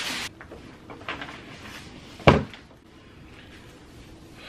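Plastic packaging crinkling, cut off just after the start; about two seconds in, a single sharp thump as a Cybex infant car seat is set down on its cardboard box.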